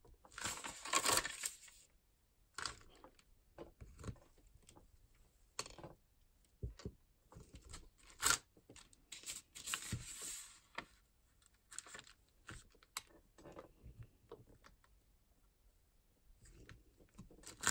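Crinkled tea-stained paper rustling and sliding under the hands as a clear acrylic stamp block is set down and pressed onto it, with scattered light taps and clicks from the block. The rustling is strongest about a second in and again around ten seconds in.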